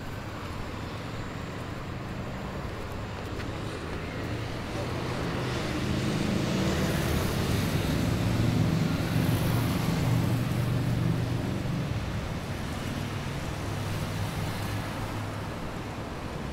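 Street traffic: a motor vehicle's engine hum builds, is loudest a little past the middle, then fades as the vehicle passes.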